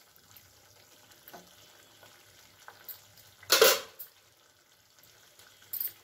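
A spatula stirring and scraping faintly in a kadai of fish curry, then a short, loud clatter about three and a half seconds in as the spatula is put down, with a smaller knock near the end.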